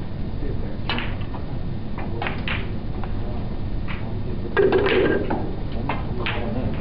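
Snooker balls clicking: cue tip on cue ball and balls striking one another, a series of short sharp clicks over steady room noise, with a louder, fuller knock about four and a half seconds in.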